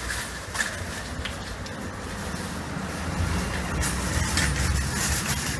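A vehicle underway heard from aboard: a steady low rumble with a hiss over it, growing louder about three seconds in.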